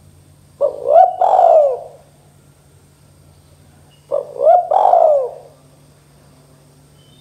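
Spotted dove cooing: two three-note phrases about three seconds apart, each a short coo followed by two longer coos that fall away.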